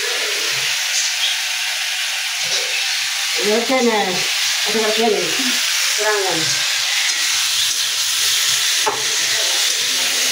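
A potato, ridge gourd and fish curry frying in a pan, giving a steady sizzle. A voice is heard briefly in the background around the middle.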